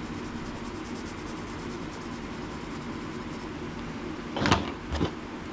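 Steady background hum of a fan or air conditioner, then two sharp knocks about half a second apart near the end as hand tools are set down and picked up on the table.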